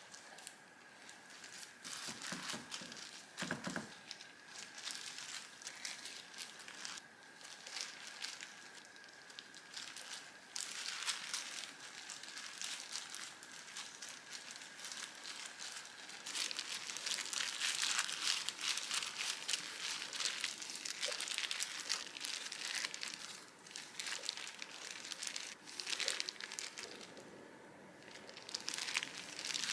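Disposable plastic gloves crinkling and dried seaweed sheets rustling as hands spread rice and lay fillings on laver for mini gimbap: a close, irregular crackle that comes and goes, busier in the second half.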